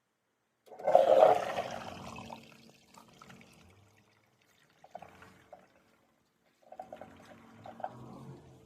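Toilet flushing: a loud rush of water starts about a second in and fades over a couple of seconds. Two quieter stretches of water sound follow near the middle and toward the end.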